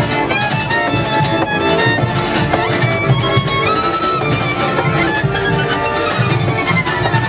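Live acoustic string band playing, with a fiddle carrying a gliding melody over a cello.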